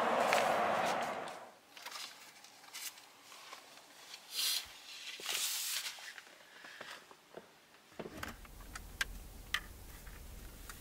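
A loud rushing noise fades away in the first second and a half. Then come soft rustling and light knocks of cloth window shades being handled and fitted inside a car. Near the end a low hum sets in, with a couple of sharp clicks.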